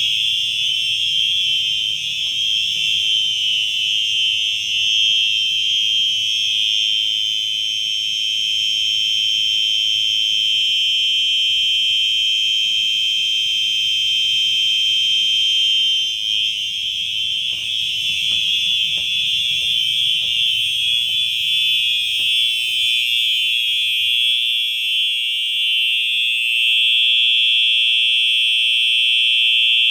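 Two Simplex 4903-9236 fire alarm horns sounding together in one loud, continuous, high-pitched tone with no breaks, which sounds rather eerie.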